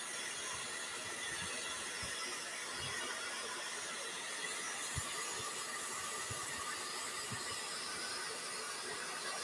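Steady background hiss with a few faint, soft knocks.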